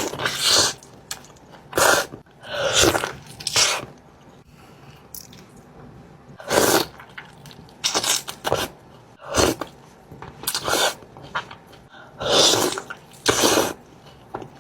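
Close-miked eating of crispy fried chicken: bites and crunching of the coating, in loud irregular bursts about once a second.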